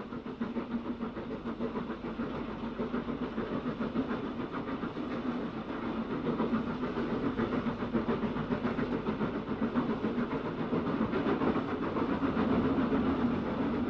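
Bulleid Pacific steam locomotive working a train at speed, with a rapid run of exhaust beats that grows louder about halfway through as it draws nearer.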